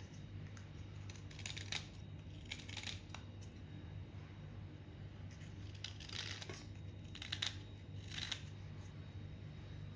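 Utility-knife blade scraping a water-soaked piece of broken white chalk: about five short, separate scrapes, with a faint steady low hum underneath.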